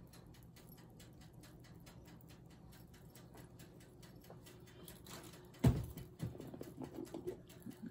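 Faint, even ticking about four times a second over a low hum while butter melts in a frying pan. A little past halfway comes a loud knock as a jar is picked up, then a run of smaller knocks and clicks as it is handled.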